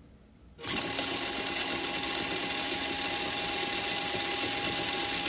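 RC4WD FF-030 micro electric motor with a 10-tooth pinion in a mini RGT Adventurer crawler, switched on under throttle for an RPM check: it starts suddenly about a second in and runs at a steady high whine of motor and gears.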